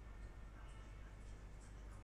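Near silence: a faint, steady low hum and hiss of background recording noise.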